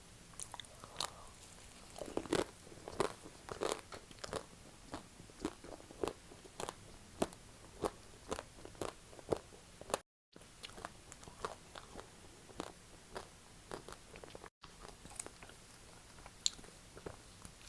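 Close-up chewing and biting of chocolate-coated ice cream: a steady run of crisp crunches, roughly one or two a second, as the coating cracks between the teeth.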